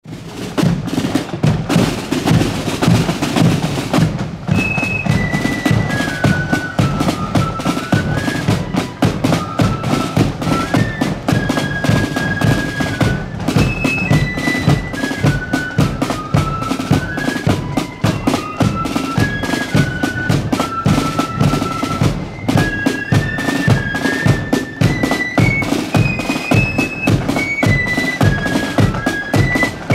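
Marching flute band in full play. Snare drums and a bass drum play alone for about the first four seconds, then the flutes come in with a high, stepping melody over the steady drum beat.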